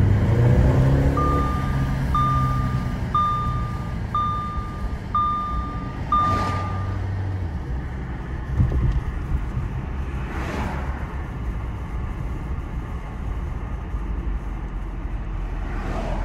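An Audi A4's 2.0 TFSI four-cylinder engine heard from inside the cabin while driving, its revs falling in the first second or so, over steady road noise. It is running normally on petrol mixed with used engine oil, with no misfiring. A dashboard chime beeps six times, about once a second, during the first half.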